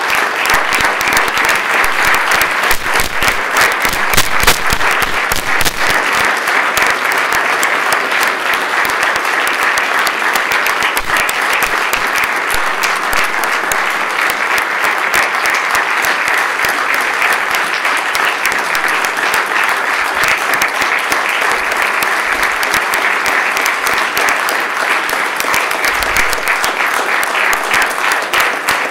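Sustained applause from a large crowd: many people clapping at once, loud and steady.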